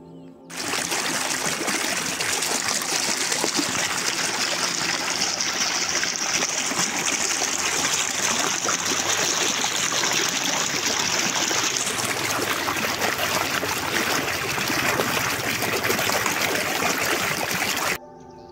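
Fast-flowing floodwater pouring and splashing over stones in a canal, heard up close as a loud, even rush. It starts suddenly just after the beginning and cuts off sharply near the end.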